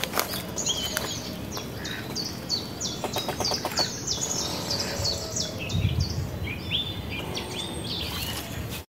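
Wild birds singing: a long run of short, high, quickly repeated chirps, with a few soft clicks about three seconds in. The sound cuts off suddenly just before the end.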